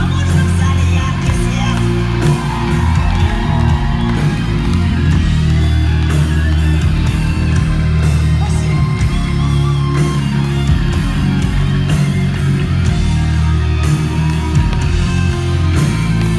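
A live band playing rock music, with guitar prominent over a heavy bass, loud and continuous.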